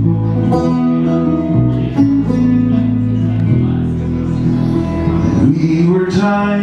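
Banjo and acoustic guitar playing an instrumental break in a folk song, plucked notes over a steady strummed accompaniment.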